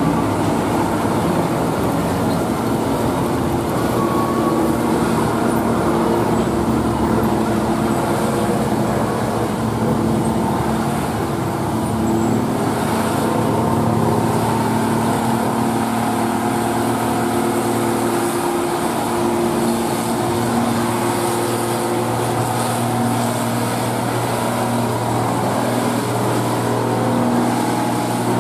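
Old Mercedes-Benz tow truck's diesel engine running steadily under load while towing a heavy truck uphill, mixed with passing car traffic.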